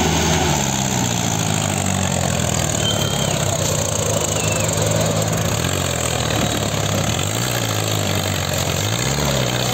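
Tractor diesel engine running hard under load, rising in pitch about half a second in and dipping briefly twice near the end.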